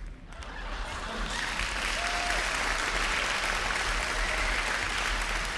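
Applause: a group clapping that swells about a second in, holds steady, and begins to fade near the end.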